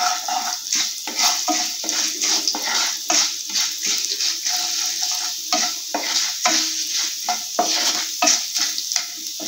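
Mustard seeds, urad dal and curry leaves frying in hot gingelly oil in a non-stick pan, sizzling and crackling, while a wooden spatula stirs and scrapes through them.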